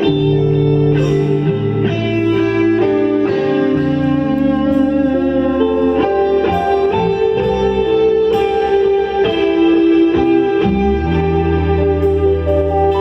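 Live worship band playing an instrumental passage between sung lines: electric guitar carrying sustained melody notes over bass and keyboard.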